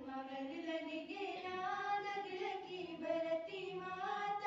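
Young girls singing a Garhwali folk song together without instruments, the melody moving in long held notes.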